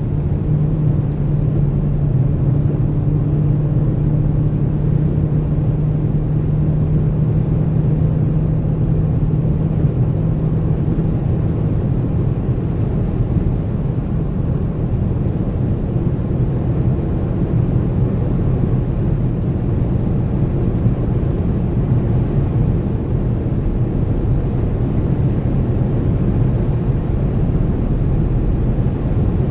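2014 Dodge Charger Pursuit being driven, a steady low rumble of engine and road noise with a hum that fades about ten seconds in. It carries the light chattering from the front passenger-side suspension that persists after new control arms and tie rods; the owner suspects the struts or the stabilizer bar bushings.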